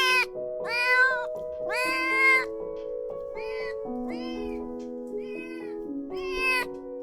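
Kitten meowing repeatedly, about six short, high meows, the first few louder and the later ones fainter, over background music of held notes.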